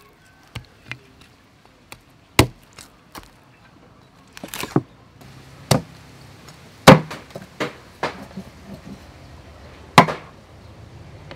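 Meat cleaver chopping roast duck on a round wooden chopping block: a series of sharp, irregularly spaced chops, the loudest about two and a half, seven and ten seconds in.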